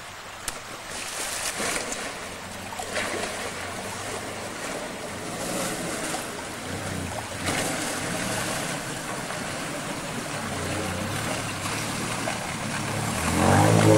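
Old Nissan ute's engine running as it wades through a muddy creek crossing, with water sloshing and surging around the vehicle. Near the end the engine gets much louder as it is revved.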